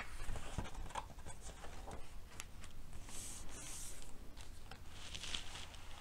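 Pages of a picture book being turned and pressed flat by hand: paper rustling and sliding, with a few light taps in the first second.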